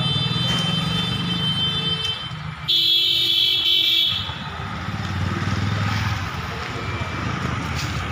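Passing road traffic: a motor vehicle engine running, with steady high horn tones, and a vehicle horn sounding loudest for about a second and a half around three seconds in.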